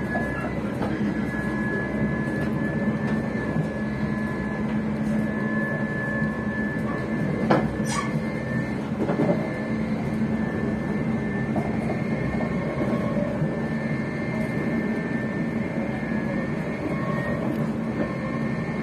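ScotRail train's traction motors heard from inside the carriage: a steady whine over continuous rumbling running noise, which the uploader ties to the wheels slipping. A few sharp knocks come around eight seconds in.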